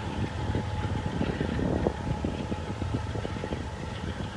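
Wind buffeting the microphone over the low, steady rumble of a distant CSX diesel freight locomotive approaching along the track.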